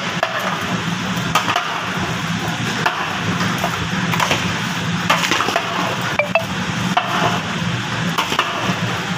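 A spoon clinking and scraping against a metal cooking pot while raw chicken pieces are mixed with spice paste, with short irregular knocks every second or so over a steady low hum.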